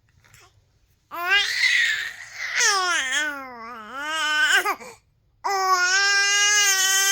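A baby vocalizing in long, drawn-out cries: first a wavering one that dips in pitch, then after a short pause a second, steadier one held at one pitch.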